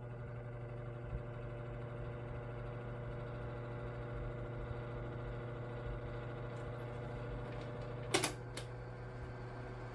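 Electric fan running with a steady hum and a rapid ticking rattle: the blade noise to be fixed. Two sharp clicks about eight seconds in.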